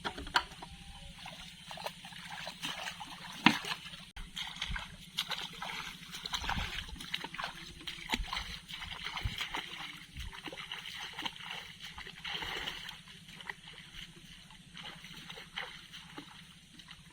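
Water splashing and sloshing in irregular bursts, many short sharp splashes, the loudest about three and a half seconds in, over a steady low hum.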